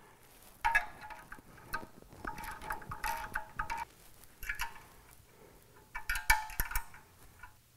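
Ratchet wrench clicking in four short spells, with a metallic ring, as the oil pump pickup bolts on an LS V8 block are tightened down.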